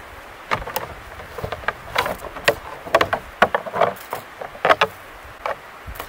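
Antlers of two sparring bull moose clacking and rattling together, an irregular run of sharp knocks that comes thickest in the middle of the stretch.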